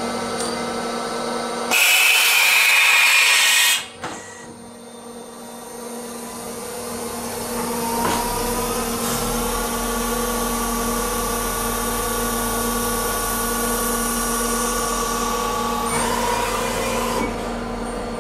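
Nomura NN-32YB2 CNC lathe running through a machining cycle, with a steady motor and spindle hum. A loud hissing rush lasts about two seconds near the start, then the spindle whine rises in pitch and holds steady.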